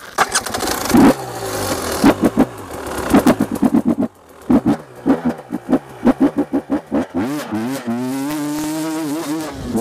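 Off-road dirt bike engine revving in quick rising and falling bursts, dipping about four seconds in, then held at a steadier pitch near the end.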